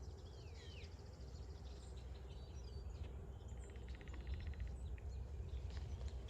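Songbirds calling: short downward-sweeping chirps, then a fast, even trill about halfway through. Underneath are a faint steady hum and a low rumble of wind.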